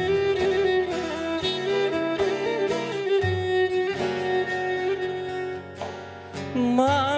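Instrumental Pontic folk music: a Pontic lyra (kemenche) bows the melody over strummed acoustic guitar, with a heavy frame-drum beat every few seconds. A man's voice comes in singing near the end.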